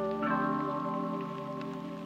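Background music of ringing struck notes: a new chord comes in sharply about a quarter second in and is held.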